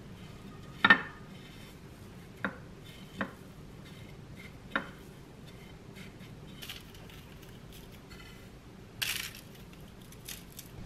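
Dishes being handled while breading pork cutlets: a few sharp clinks and knocks against the dishes, the loudest about a second in, then a brief rustle near the end.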